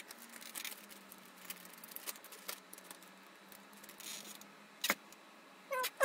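Faint scattered clicks and rustles of a small plastic syringe of thermal paste being handled over a bare graphics card, with a faint steady hum underneath.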